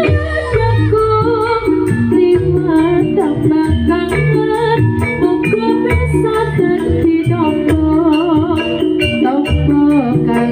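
Campursari songs for jaranan: a singer's wavering melody over a drum-led ensemble keeping a steady, fast beat.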